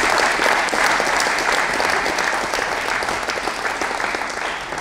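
Spectators clapping, the applause slowly dying down.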